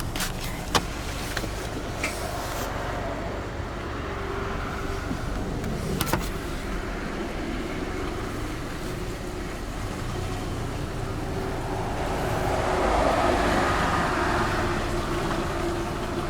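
Motor vehicle going by over a steady low rumble, growing louder to a peak about thirteen seconds in and then fading. A few sharp clicks are scattered through the first several seconds.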